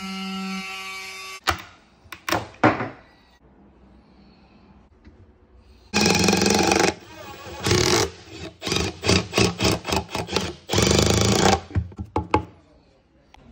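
Cordless power driver running in short, loud bursts, with a quick series of short pulses in the middle, as it drives the mounting-ear screws of a metal old-work electrical box tight against a cabinet panel. A steady hum runs for the first second and a half, and sharp clicks come between the bursts.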